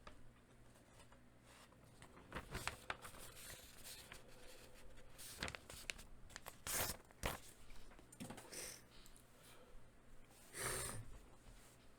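Faint scattered clicks and rustles of things being handled on a desk, with a longer tearing or crinkling rustle about ten and a half seconds in.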